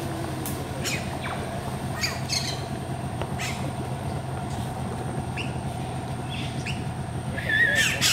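Colony birds at a tree of hanging woven nests giving scattered short squawks and chirps, with a wavering warbled call near the end. Underneath runs a steady low hum and a thin, steady high-pitched whine.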